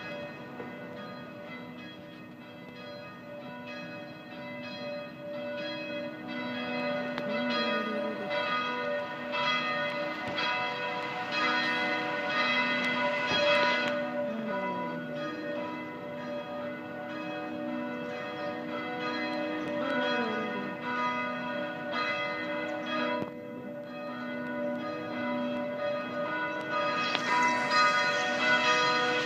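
Church bells ringing on without a break, many bells striking in quick succession so their long ringing tones overlap, growing louder over the stretch.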